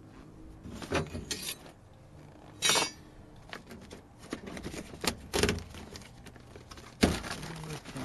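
Intermittent clinks, knocks and short scrapes of metal and plastic parts being handled and pulled from inside a car door, with two louder knocks, one a few seconds in and one near the end.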